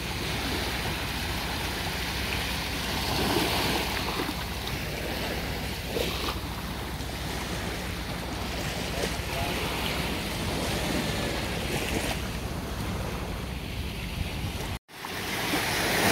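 Small waves breaking and washing up on a sandy beach, a steady surf sound with wind buffeting the microphone. After a brief dropout near the end, the surf comes back louder.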